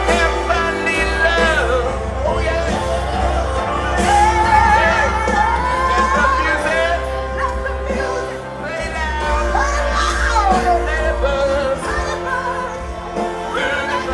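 Live band music with a singer belting long notes that waver and slide up and down, over a steady bass.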